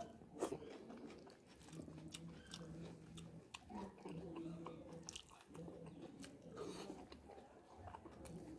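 Faint close-up chewing of fried fish and rice eaten by hand, with small wet mouth clicks. A low hum comes and goes under it.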